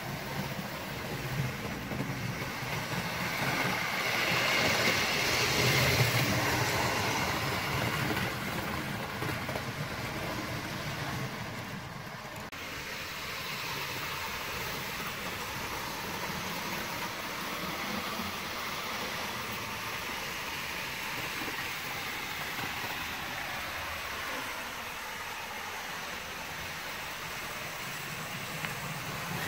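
OO gauge model train running on sectional track: the locomotive's small electric motor whirring and the wheels rattling along the rails. It grows louder about four to seven seconds in as it passes close, then runs on steadily.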